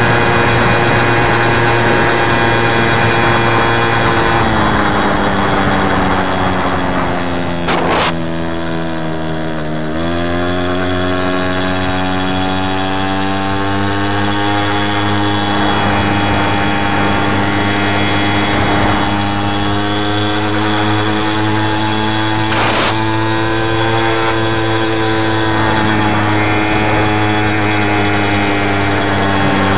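A VeloSolex moped's small two-stroke engine running steadily. Its pitch sinks over several seconds, picks up suddenly about ten seconds in and then climbs slowly, with two short sharp knocks, one about eight seconds in and one about twenty-three seconds in.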